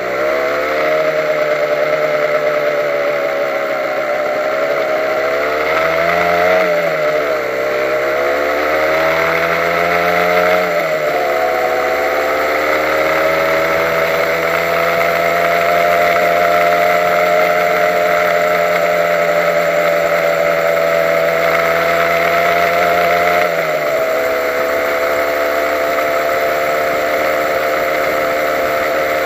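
Honda NSR150's two-stroke single-cylinder engine running while riding: its pitch rises and falls with the throttle a few times in the first ten seconds or so, holds steady, then drops about 23 seconds in. A steady high whistle runs alongside it.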